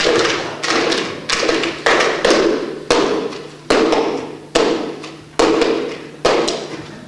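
Flowerpots knocked and handled in a synchronized routine: a steady series of sharp knocks, about one every two-thirds of a second and spacing out a little towards the end, each ringing on in the hall's echo.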